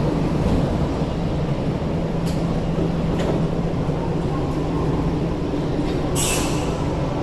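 Tokyu 5050 series electric commuter train standing at an underground platform with its doors shut, its equipment giving a steady low hum. There are a couple of faint clicks, and a short burst of hissing air about six seconds in.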